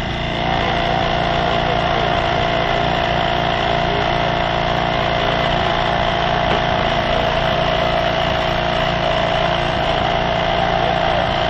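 Engine-driven hydraulic power unit for a rescue tool, running steadily. About half a second in it steps up and gets louder while the tool works under load, then drops back suddenly near the end.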